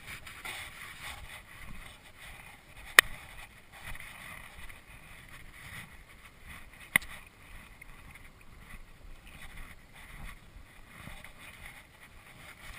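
Steady hiss of wind and movement, broken by two sharp, loud clicks, one about three seconds in and one about seven seconds in.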